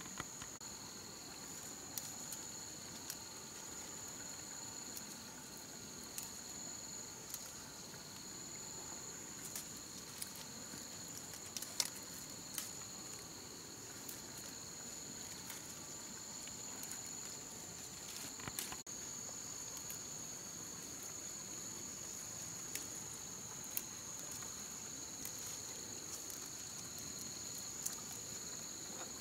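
Forest insects chirring in a steady high two-pitched drone, with scattered light clicks and rustles of plants being handled.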